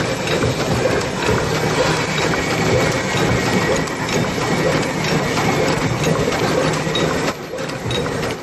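OCS12 paper cup making machine running, making 6 oz paper cups: a steady, fast mechanical clatter of rapid clicks from its cup-forming mechanism, a little quieter near the end.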